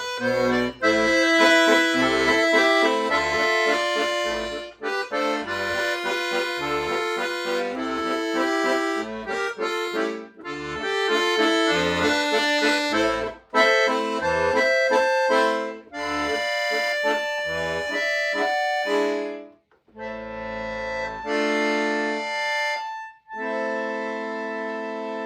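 Solo accordion playing a lyrical piece, with a melody and chords over separate low bass notes. After a brief break about 20 seconds in, it closes on long held chords.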